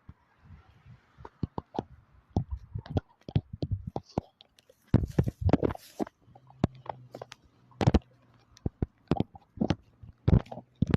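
Irregular taps, clicks and knocks close to the microphone, with a few louder scuffing bursts about five to six seconds in.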